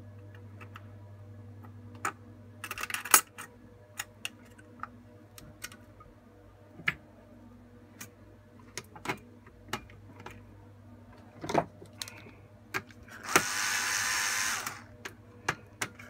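Clicks and taps of a CPU and its heatsink being set into the socket of a Dell PowerEdge M610 blade's system board. Near the end a Bosch cordless screwdriver runs for about a second and a half, driving down a heatsink screw.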